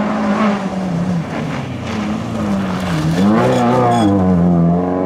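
Fiat Punto 2 Sporting's 1.4 16v four-cylinder engine revving hard as the rally car slides on gravel, with gravel spraying from the tyres. The engine pitch dips about three seconds in, then climbs again.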